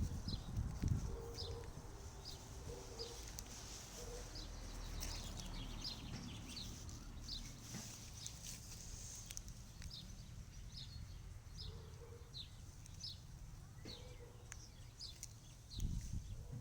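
Songbird chirping, repeating short high chirps about once or twice a second, over faint background haze, with a low rumble briefly near the start and again near the end.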